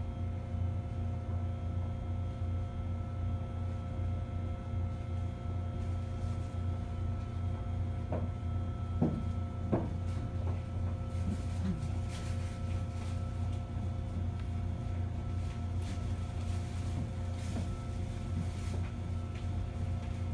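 Steady electrical hum with a few constant tones from a standing Mizuma Railway electric train's onboard equipment, the train idling before it pulls out. A few short clicks and brief squeaks come about halfway through.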